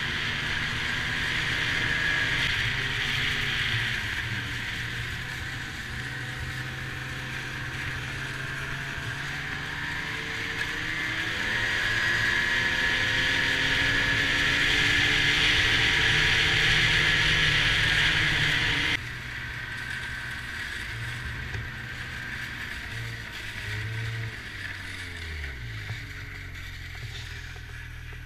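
Snowmobile engine and track running along a trail at speed, with a steady rushing hiss, the engine pitch rising and falling with the throttle. About two-thirds of the way through the sound drops off suddenly, and near the end the engine note falls as the sled slows.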